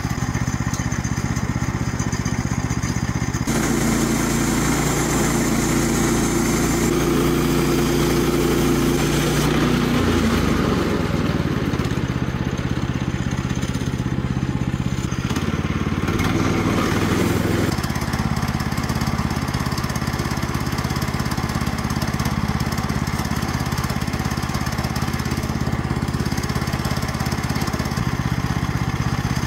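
Small gasoline engine of a Woodland Mills HM122 portable bandsaw mill running steadily. Its note rises about three and a half seconds in and shifts again around ten seconds, then drops back to its earlier steady running about eighteen seconds in.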